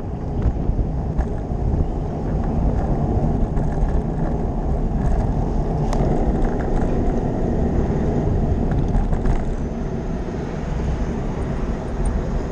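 Steady wind and road rumble on a bicycle-mounted camera while riding, with a single sharp click about halfway through.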